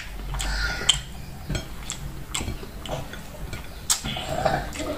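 Close-up eating sounds: scattered wet clicks and smacks of mouth and fingers as rice with stew is chewed and scooped up by hand.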